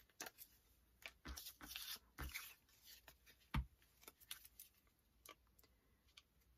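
Cut card-stock gift tags being gathered and shuffled by hand on a cutting mat: faint paper rustling with a few light taps, the loudest a soft thump about three and a half seconds in.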